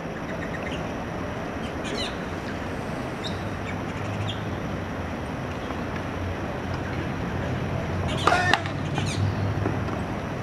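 Steady outdoor background noise with a low hum, a few short high chirps, and a brief louder sound about eight seconds in.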